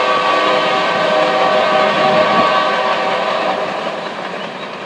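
Freight train of tank and hopper cars rolling away over a grade crossing while the crossing's warning bells ring as a steady set of tones. The bells fade out about four seconds in as the gates lift.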